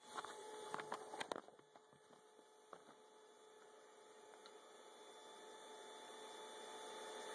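A few knocks and rustles as the camera is handled and set down in the first second and a half, then a faint steady hum that slowly grows louder.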